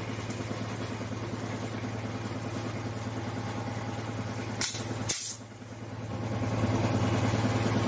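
Steady hum of the van's engine running to drive its onboard air compressor. A little past the middle come two short, sharp blasts of air about half a second apart: the pneumatic air hole punch firing and punching a hole through 16-gauge sheet metal.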